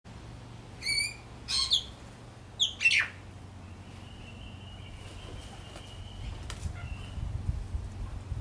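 Rainbow lorikeet giving three short, shrill screeching calls within the first three seconds. A faint, thin, steady high tone follows for a few seconds over a low rumble.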